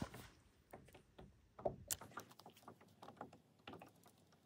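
Faint, irregular clicks and taps from a spinning rod and reel being handled and cast from a plastic fishing kayak, with a sharper click about one and a half seconds in.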